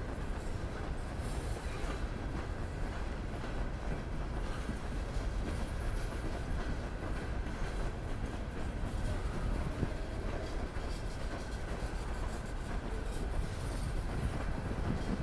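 Norfolk Southern freight train rolling past steadily, a continuous rumble of cars and wheels on the rails.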